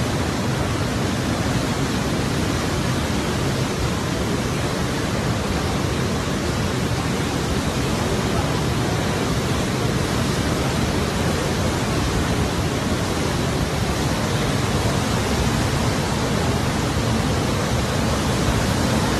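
Muddy floodwater in a swollen river surging past a bridge pier, a steady, dense rush of water noise.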